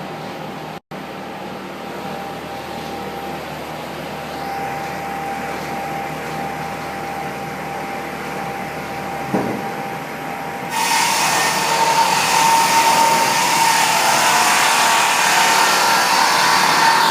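Industrial multi-rip saw machine running, a steady mechanical noise with a faint steady tone. There is a single knock about nine seconds in, and about eleven seconds in the noise abruptly becomes louder and brighter.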